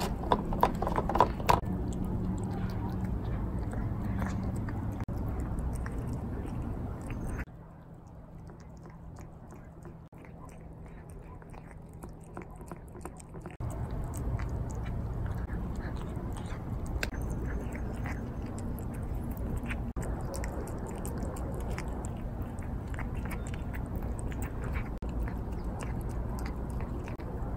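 A cat chewing and lapping wet food from a plate, with many small, quick wet clicks and smacks, over a steady low hum.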